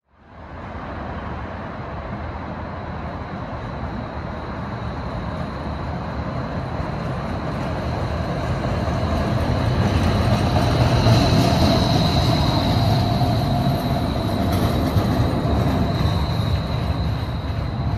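Portland Streetcar car 001 running along its rails and drawing nearer, with a steady high-pitched wheel squeal throughout. The sound grows louder toward about the middle and eases off a little near the end.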